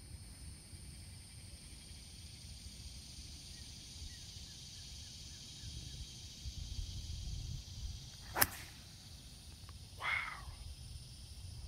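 A golf club striking a ball on the fairway: one sharp crack about eight seconds in, the loudest sound here. A short hiss follows a second and a half later. Insects buzz steadily throughout, and wind rumbles on the microphone.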